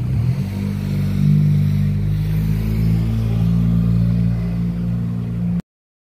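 A motor vehicle's engine running steadily nearby, a low even hum with a few steady tones, which cuts off suddenly near the end.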